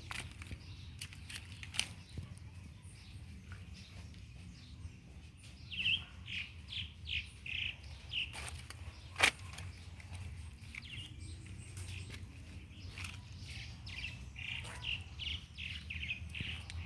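A bird calling in two runs of short, quickly repeated chirps, several a second, one a few seconds in and one near the end, over a steady low background rumble. Scattered sharp clicks, the loudest about halfway through.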